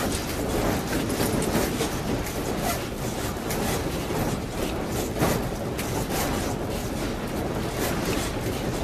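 A room shaking in an earthquake: fusuma sliding doors and the wooden house frame rattle and clatter without a break, over a continuous rumbling noise.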